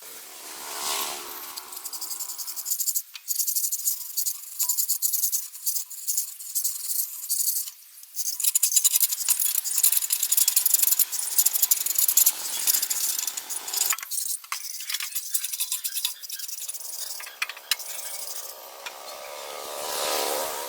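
Rough scraping and scrubbing in fast, uneven strokes over a hard surface, coming in spells with brief pauses and loudest in the middle stretch.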